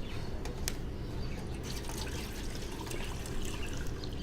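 Water being stirred in a bowl to dissolve ORS powder: soft sloshing and dripping with scattered small clicks.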